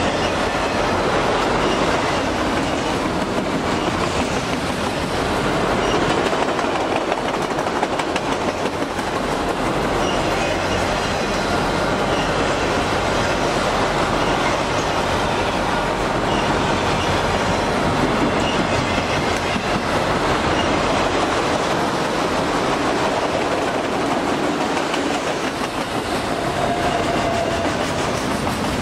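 Freight train of multilevel autorack cars rolling past close by: a steady rumble and clatter of steel wheels on the rails. Faint wheel squeals come and go.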